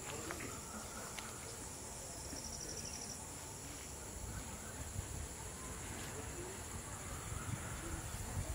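Insects chirping in a steady, high, continuous drone, with a short pulsed trill about two and a half seconds in. Low rustling and a few soft knocks sit beneath it.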